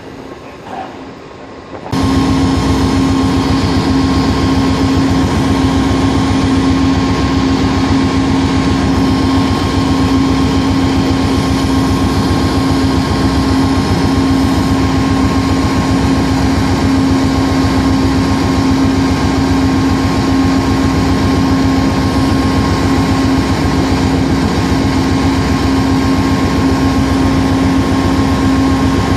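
Amtrak GE P42DC Genesis locomotive's diesel engine running steadily at a standstill close by, a loud constant drone with a strong steady hum. The sound begins abruptly about two seconds in.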